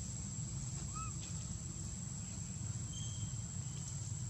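Outdoor ambience: a steady high-pitched insect drone over a constant low rumble, with a faint short chirp about a second in and another near three seconds.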